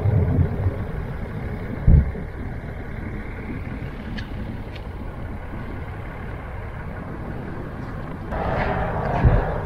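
Wind rumbling on the microphone, with gusts buffeting it at the start and about two seconds in, and a stronger gust near the end.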